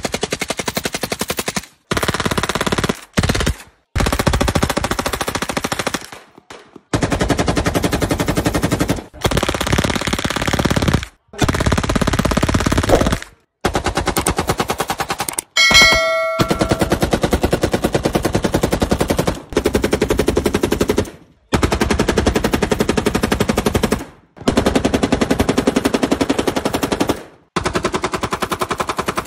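Full-auto AK-pattern rifles and pistols firing long bursts, about a dozen one after another, each stopping abruptly before the next. A brief ringing tone sounds once about halfway.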